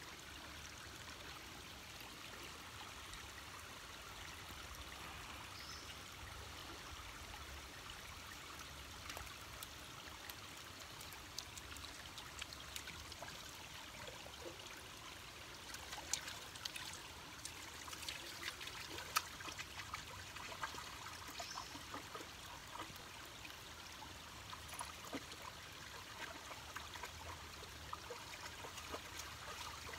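Faint trickling of a shallow, low-flow stream running over rocks. From about halfway on, it is broken by short splashes and clicks from a dog wading in the water.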